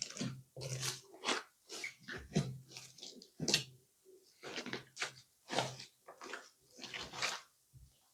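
Crunchy slime being squeezed and pressed by hand, giving repeated crackling crunches about two a second.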